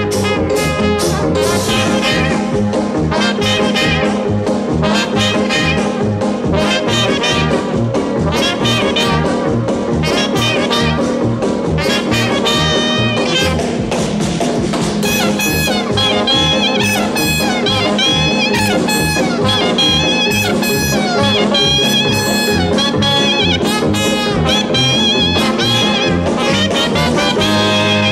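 Background jazz music with brass and a steady beat.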